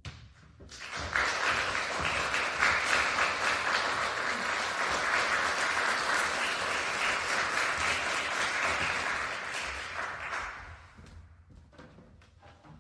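Audience applauding, swelling in about a second in, holding steady, then dying away near the end.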